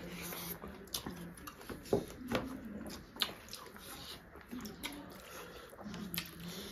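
Close-up eating sounds: wet chewing and lip smacks, and fingers squishing rice into fish curry, with scattered sharp clicks.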